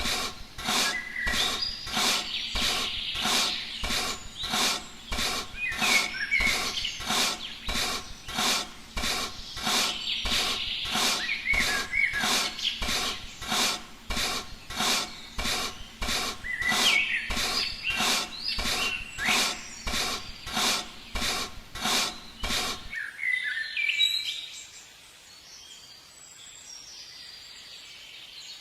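Small birds chirping over a steady rhythmic stroking noise, about three strokes every two seconds. The strokes stop abruptly near the end, leaving only the birds chirping faintly.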